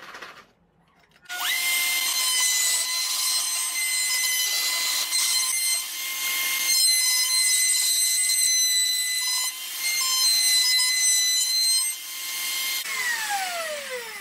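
A small router mounted under a router table switches on about a second in and spins up to a steady high whine. It runs while a roundover bit cuts the edges of a hardwood lever, with a rough cutting noise rising and falling as the wood is fed past. Near the end it is switched off, and its whine falls as it spins down.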